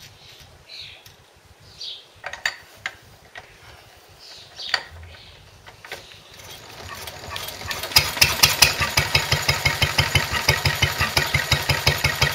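1939 Lister D single-cylinder stationary engine being hand-started: a few clicks, then it spins up and catches about eight seconds in, running with a steady, even beat of about four to five firing strokes a second. Birds sing faintly at the start.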